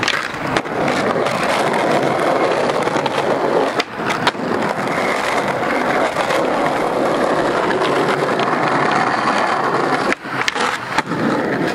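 Skateboard wheels rolling on concrete paving with a steady rumble, broken by sharp clacks of the board striking the ground and ledge: a couple at the start, two about four seconds in, and a cluster near the end.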